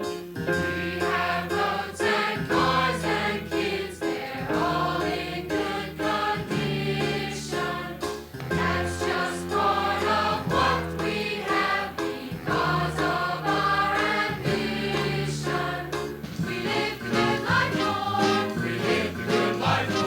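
Choir singing with band accompaniment: a gospel-style song with a steady beat.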